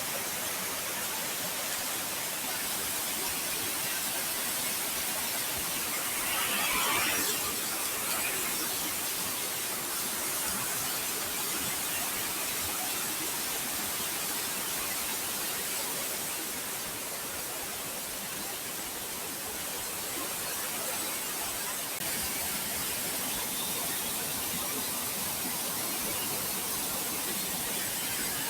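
Steady rush of river water flowing out at the source of the Nairobi River, with a short higher-pitched sound about seven seconds in.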